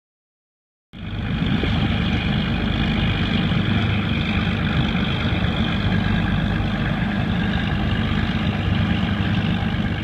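Loud, steady drone of machinery at an industrial plant, a deep hum with a hiss over it, cutting in abruptly about a second in.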